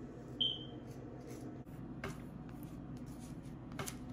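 A fork clicking and scraping on a plate while spreading butter on pancakes: a short ring just under half a second in and light clicks about two seconds in and near the end, over a steady low hum.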